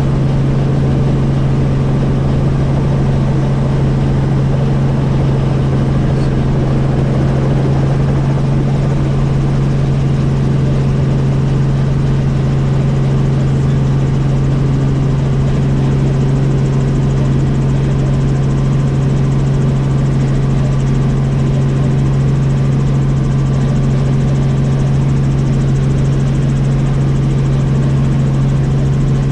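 Helicopter in flight: a loud, steady drone of rotors and engine with a strong low hum that does not change.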